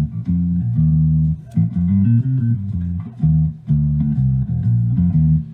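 Theme music: a bass-guitar riff with guitar, the instrumental intro before the vocals begin.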